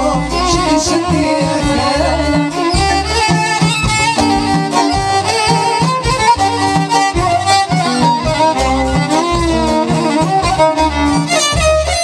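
Moroccan chaabi band playing an instrumental passage live, with no singing: a violin carries a wavering melody over guitar and a steady, driving bass-and-percussion beat.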